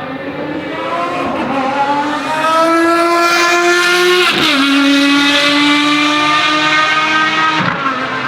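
Ferrari FXX Evoluzione's V12 accelerating hard, its pitch rising steadily through a gear, with a quick upshift about four and a half seconds in and another near the end.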